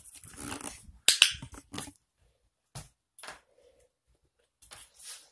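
Handling noise: rustling and sharp clicks, the loudest about a second in, then a few faint scattered ticks.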